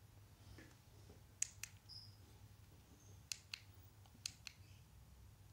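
Three pairs of sharp, short clicks, a computer button pressed and released while paging through slides, over a faint low hum.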